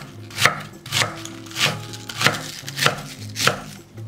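Chef's knife slicing cabbage into strips on a wooden cutting board: about six even cuts, each a crisp crunch that ends in a knock of the blade on the board, roughly one every 0.6 seconds.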